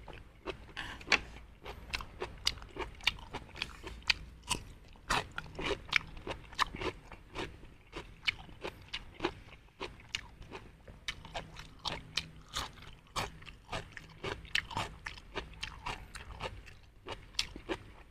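A person chewing close to the microphone, with steady crunching and wet mouth clicks two or three times a second as he eats crisp raw cucumber sticks.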